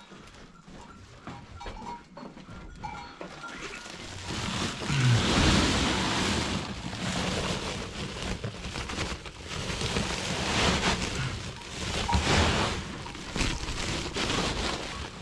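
Woven plastic feed sack rustling loudly in irregular bursts as it is handled and shaken, starting about four seconds in.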